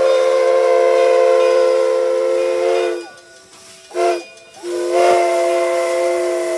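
Steam whistle of McCloud River Railroad locomotive No. 25, several notes sounding together as one chord: a long blast that ends about 3 seconds in, a short toot about a second later, then another long blast starting about 5 seconds in.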